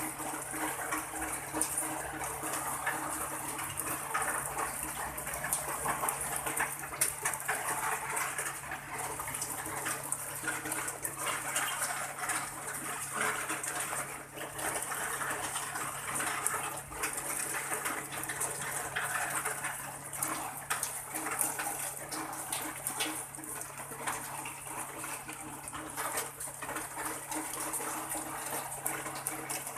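Steady rain falling: an even hiss with many small drop hits scattered throughout.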